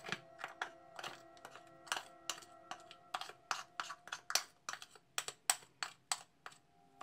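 A spoon scraping and clicking against a plastic bowl as thick green royal icing is scooped out into a plastic bag, in quick irregular clicks that come faster after the first few seconds. Soft background music with steady held notes runs underneath.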